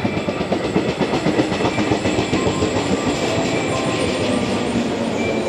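Yellow electric multiple-unit train (set B19 of the Okayama depot) pulling into the platform and slowing, its wheels clattering over the rail joints with a steady rolling rumble.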